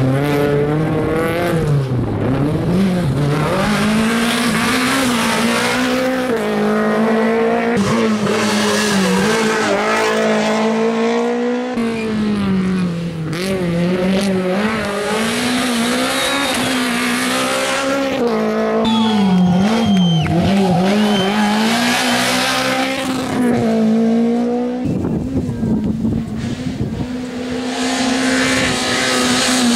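Rally car engine revving hard through tight bends, its pitch climbing and dropping again and again as the driver accelerates, lifts and changes gear. Tyres squeal briefly about two-thirds of the way in.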